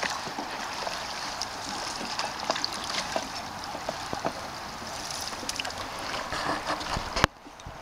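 Water lapping and trickling around a canoe on the river, with small splashes and drips from paddle strokes. It cuts off abruptly with a click near the end.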